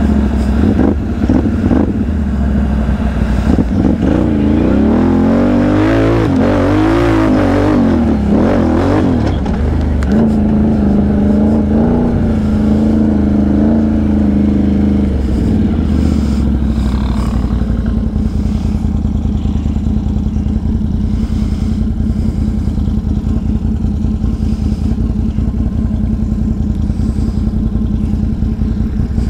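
Can-Am Outlander XMR 1000 ATV's V-twin engine under way, revving up and down for several seconds, then holding a steady higher pitch. From about halfway through it settles to a lower, steady run.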